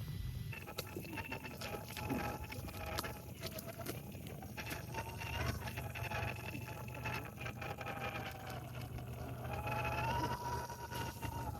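Small electric RC rock crawler's motor and geared drivetrain whining as it crawls, the pitch wavering with throttle and rising near the end, with scattered clicks and knocks of the truck on rock.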